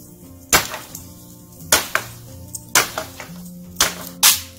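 Five sharp chopping blows of an axe into wood, about one a second, with two close together near the end. Background music with steady held notes plays throughout.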